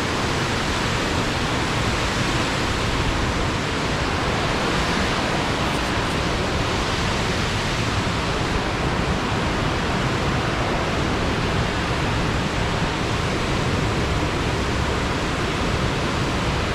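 Fast storm-swollen water rushing steadily in a continuous, even roar.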